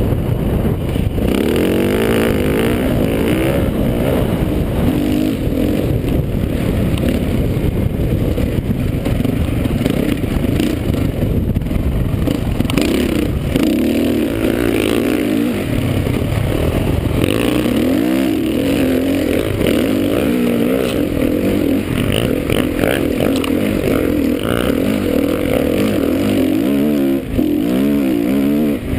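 Single-cylinder 450cc four-stroke motocross bike engine close to a helmet camera, revving up and down as the rider works the throttle through the gears, with wind rushing over the microphone.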